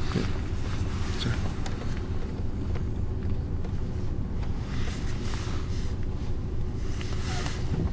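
Vehicle engine idling: a steady low rumble with a faint steady hum.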